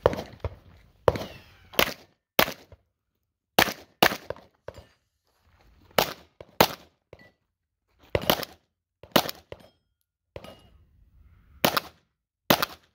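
9mm Glock pistol with a Glock 34 slide in a Flux chassis firing about a dozen shots, mostly in quick pairs about half a second apart, with pauses of a second or two between the pairs.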